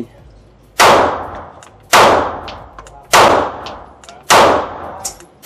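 Canik METE MC9 LS 9mm pistol firing MagTech 115-grain rounds in slow, steady single shots, about one every second: four loud shots, each ringing off the range walls as it fades, with a fifth right at the end.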